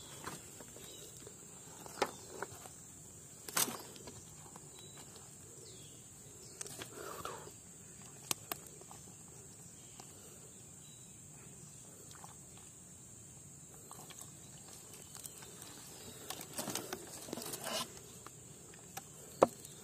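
Bare hand digging and scraping in dry, crumbly soil to open an eel burrow: scattered soft scrapes and knocks, busier near the end. Under it, insects buzz steadily at a high pitch.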